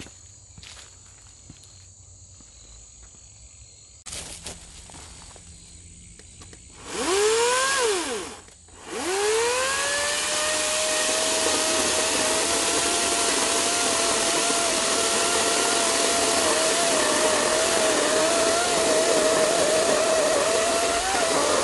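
Ego 56-volt 16-inch brushless chainsaw. About seven seconds in, the motor spins up with a rising whine, then cuts out briefly. It spins up again and runs steadily, with a slightly wavering whine, as the chain cuts into a cherry trunk near its base.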